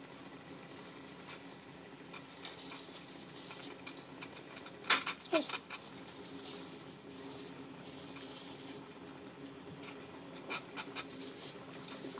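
Water bubbling at a rolling boil in a stainless steel pot, with a few brief sharp sounds as flattened glutinous-rice dough discs are dropped in, the loudest about five seconds in.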